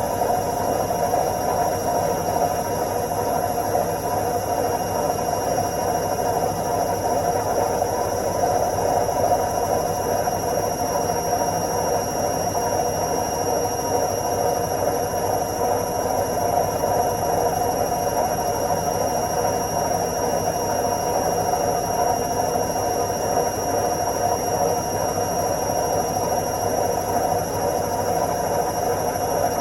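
Washing machine in its spin cycle: a steady, unchanging whirring drone with a thin high whine held constant over it.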